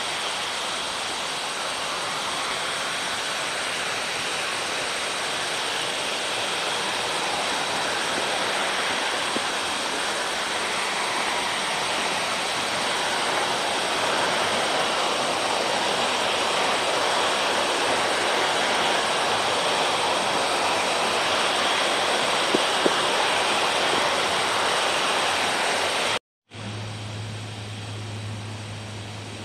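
A steady hiss-like noise with no rhythm or speech. It cuts out abruptly near the end, and a quieter low hum follows.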